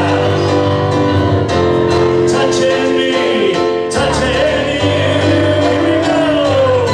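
Piano music with a man singing over it: a live dueling-pianos performance.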